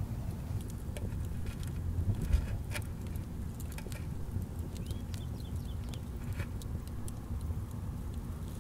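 Small scratchy clicks and taps as a stick works sticky black pitch around a bamboo spout seated in a clay bowl, over a low steady rumble, with one thump about two seconds in.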